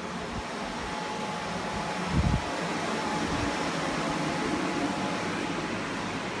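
Industrial drying fans running with a steady rushing noise, drying out a flooded house. There is a single low thump about two seconds in.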